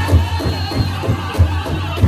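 Powwow drum group singing a chicken dance song together over a steady beat on a large drum.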